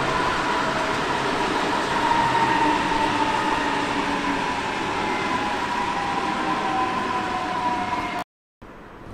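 Train running close by: a steady rail noise with a faint high tone that slowly sinks in pitch. It cuts off suddenly near the end and gives way to a much quieter steady background noise.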